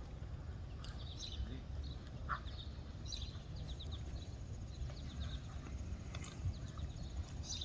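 A horse moving at a walk and trot on arena sand, with soft hoofbeats under a low steady rumble. A few short high chirps come and go.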